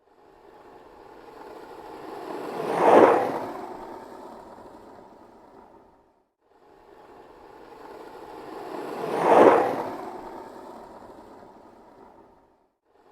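Skateboard rolling past twice, the rumble of its wheels swelling to a peak as it goes by and then fading away each time, the passes about six seconds apart.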